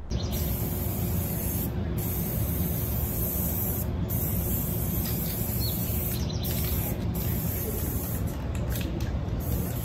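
Aerosol spray paint can hissing in long bursts of a second or two with short breaks between them, the breaks coming quicker near the end, over a steady low rumble.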